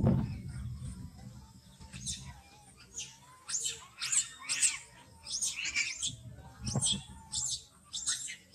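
Small animal calls: many quick, high-pitched chirps and squeaks in a row. A low thud comes at the start and another about two-thirds through.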